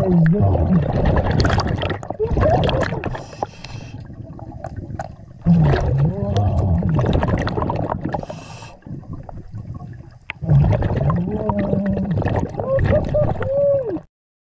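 Underwater ambience: a low rumble of water with long calls that glide up and down in pitch, in three phrases of a few seconds each. It cuts off suddenly near the end.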